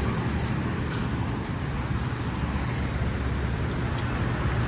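Steady road traffic noise: a continuous low engine rumble with a haze of road noise.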